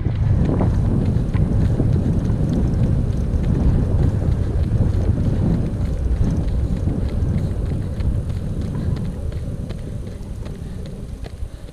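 Wind buffeting a moving camera's microphone while following a runner on an athletics track, with faint quick footfalls on the track. The rushing eases off over the last few seconds as the run ends.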